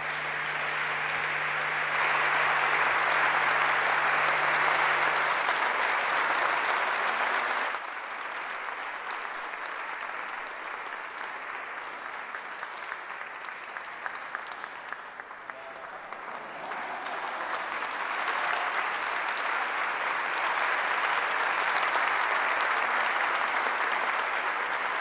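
Large audience applauding steadily. The clapping is loud at first, drops off suddenly about eight seconds in, and swells again over the last several seconds.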